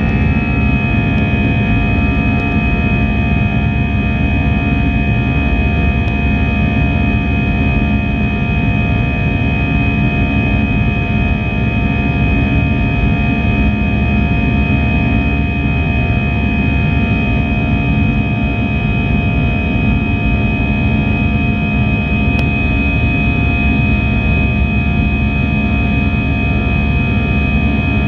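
Airbus A321 cabin noise in the climb after takeoff: the jet engines and airflow make a steady, loud rush with several steady high whining tones over it.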